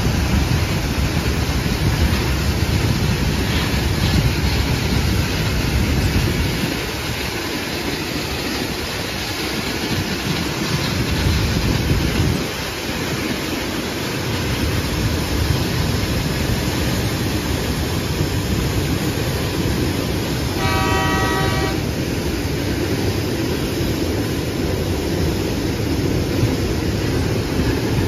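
Empty cane bins of a narrow-gauge Queensland sugarcane train rolling by with a steady low rumble. About two-thirds of the way through, the locomotive's horn sounds once, for just over a second.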